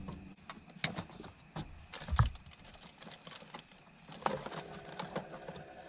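Scattered knocks and thumps from movement in a small fishing boat, the loudest a dull thud about two seconds in, over a steady high insect buzz.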